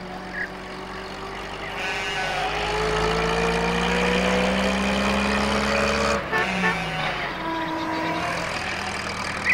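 Small post van's engine running as it drives past, getting louder with its pitch rising slowly, then cut off suddenly about six seconds in.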